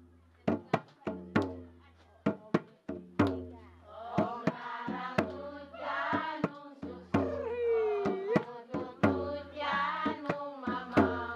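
Skin-headed hand drum beaten with the palms in a brisk beat. From about four seconds in, a woman's voice joins, singing in high, sliding notes over the drum.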